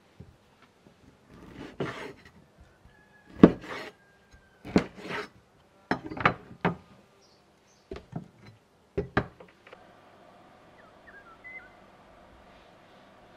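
Food-preparation handling noises: an irregular series of knocks and scrapes of wood and utensils over the first ten seconds, the loudest about three and a half seconds in, then a quieter stretch with a few faint chirps.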